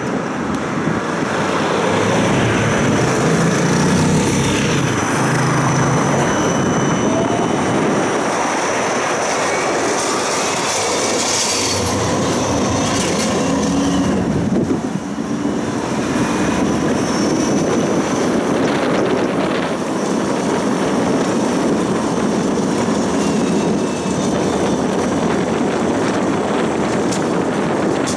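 Siemens Combino low-floor tram running on street track, heard from on board: a steady rumble of wheels on rail with thin, high wheel squeal. Another tram passes close by on the other track about twelve seconds in.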